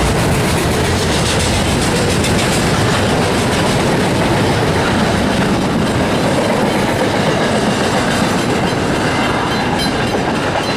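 Freight train's container wagons rolling past at speed, the steady rumble and rattle of wheels on the rails. The last wagons go by about halfway through, and the sound thins out near the end.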